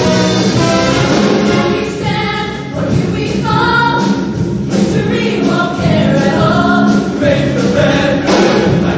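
A show choir singing in harmony over musical backing, holding notes that change pitch every second or so.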